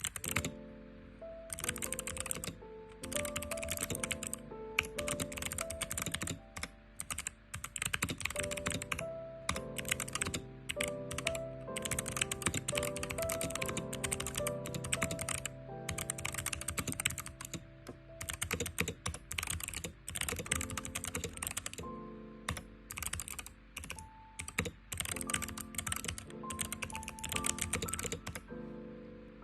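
Typing on a Hexgears Soda68 gasket-mounted mechanical keyboard with PBT keycaps: quick runs of key clicks broken by short pauses, over background music.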